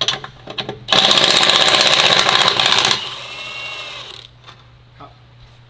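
Cordless impact wrench hammering loose the 13 mm nut on the exhaust clamp for about two seconds, then spinning more freely with a quieter whine for about a second as the nut runs off. A few light clicks follow.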